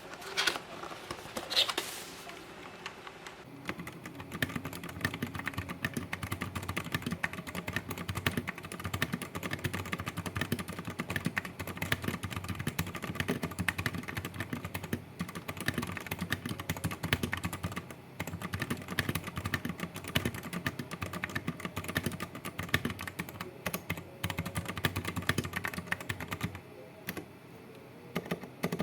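Typing on a stock, unmodded Digital Alliance Meca 8s mechanical keyboard with Outemu switches: a few separate clicks, then a fast, dense stream of key clacks from a few seconds in, easing off briefly near the end.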